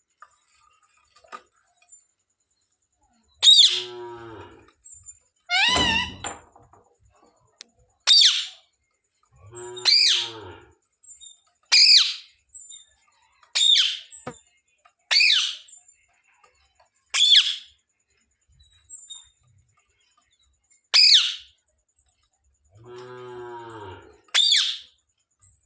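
Pet parrot calling: about ten short, loud, high-pitched screeches spaced one to three seconds apart, with a few lower, longer throaty calls in between.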